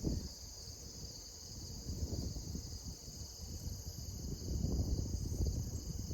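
Steady high-pitched chorus of crickets or other insects, over an uneven low rumble that eases after the first second and builds again later.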